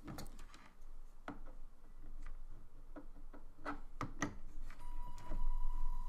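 Scattered light clicks and knocks as the power is plugged in, then, near the end, a small DC motor spinning up a plastic fan blade, with a steady high whine.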